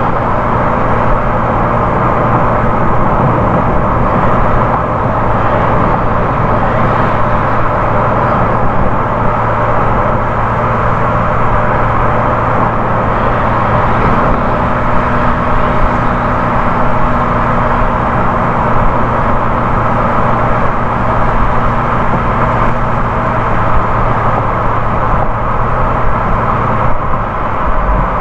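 Car driving at highway speed: steady tyre and road noise with a low engine hum, unchanging throughout.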